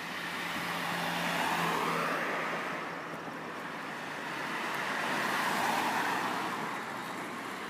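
Road traffic: cars passing, the tyre and engine noise swelling twice.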